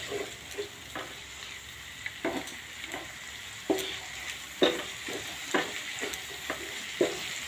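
Onion-tomato masala sizzling in oil in a pan, with a steady frying hiss. A wooden spatula stirs it, its strokes scraping against the pan about once a second; the spices are being fried into the onion and tomato before water goes in.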